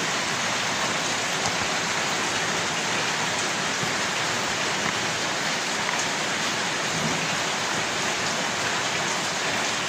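A steady, even rushing hiss that does not change throughout.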